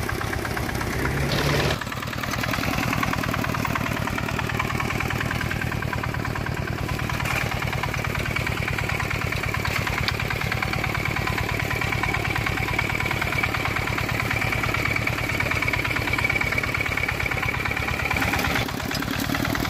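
Dongfeng single-cylinder diesel engine of a two-wheel hand tractor running steadily under way with a fast, even chugging and a faint whine above it. The sound changes abruptly about two seconds in and again near the end.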